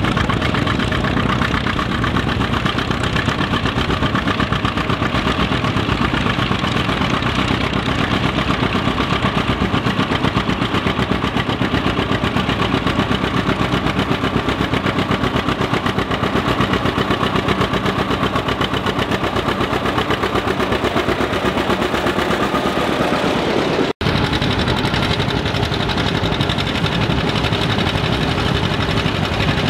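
Vintage John Deere two-cylinder tractor engines pulling plows, their exhaust popping in a rapid, even beat. The sound changes abruptly about three-quarters of the way through, where one tractor gives way to another.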